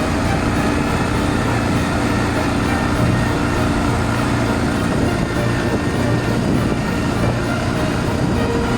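Gepard quad bike engine running steadily under way.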